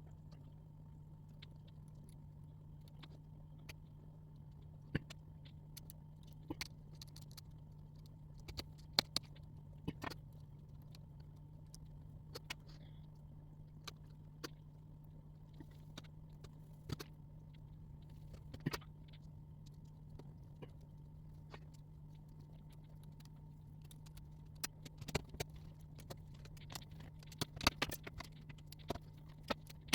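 Scattered small clicks and taps of screws, a screwdriver and plastic and metal laptop parts being handled during a laptop motherboard swap, with a cluster of quicker taps near the end, over a steady low hum.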